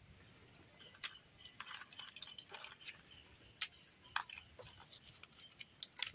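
Parle-G biscuits snapped apart by hand into a clay bowl: faint, dry, crunchy snaps, irregular and scattered, the sharpest about a second in, midway, and just before the end.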